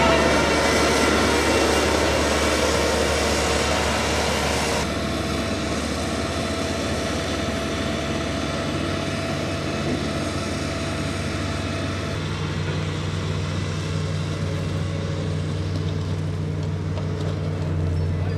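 Diesel engines of heavy road-building machines, a Caterpillar CS54 single-drum roller and a motor grader, running steadily at work. The sound changes abruptly about five seconds in, and a deeper hum comes in about twelve seconds in.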